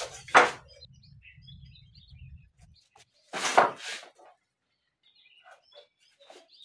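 Wooden planks being handled: a short knock about half a second in, then a louder scraping clatter around three and a half seconds in as a plank is set leaning against the bench. Birds chirp faintly in between.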